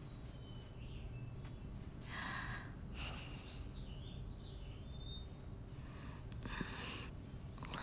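Quiet room ambience with a low steady hum, a few faint high chirps, and three or four brief soft rustles.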